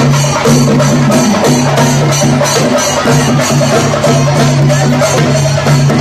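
Shinkari melam: Kerala chenda drums beaten fast and densely with sticks, with ilathalam cymbals clashing, over a steady low tone that sounds in long stretches with short breaks.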